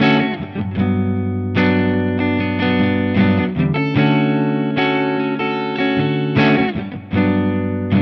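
Electric guitar played through a digital amp modeler's clean-channel emulation of a 5150-style amp: strummed chords ringing out, with fresh strums about a second and a half in, around four seconds in, and again near six and seven seconds. The clean tone carries a slight edge of drive.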